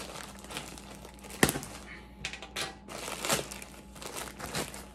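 Shipping packaging crinkling and rustling as it is opened and the contents are pulled out, with a sharp snap about a second and a half in.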